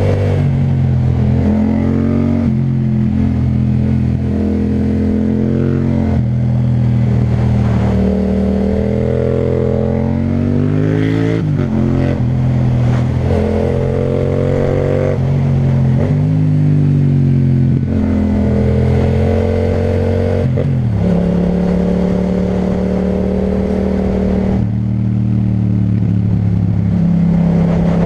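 Yamaha MT-07's parallel-twin engine running through an Akrapovic titanium exhaust while riding, the engine note rising and falling with the throttle and stepping in pitch at gear changes.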